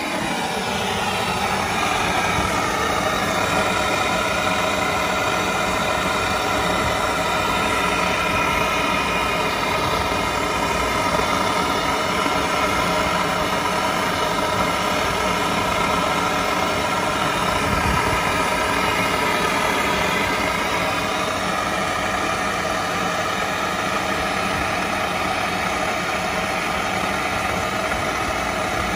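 A motor running steadily, a continuous droning hum made of several tones that barely changes.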